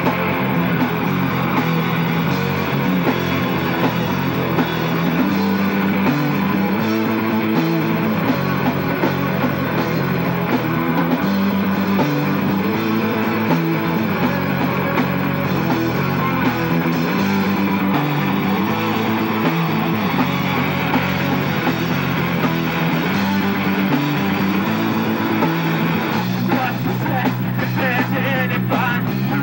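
Live rock band playing: drum kit, electric guitars and bass in a steady full-band groove, with a singer's voice coming in near the end.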